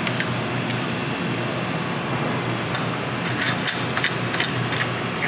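Steady mechanical room hum with a thin high whine. About three seconds in come a run of light metallic clicks and ticks as a steel retaining ring is screwed by hand onto the four-ball tester's ball cup.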